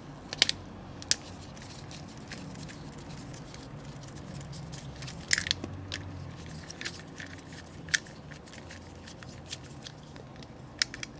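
Light clicks and creaks of a plastic toy truck's chassis being worked apart with a small screwdriver, with a louder crackle of plastic about five seconds in, over a faint low hum.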